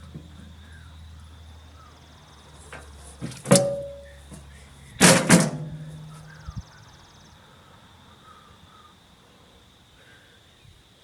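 Metal parts of the wood chipper clanking as it is taken apart: one ringing clang about three and a half seconds in, then two louder clangs in quick succession about a second and a half later, each leaving a brief ringing tone.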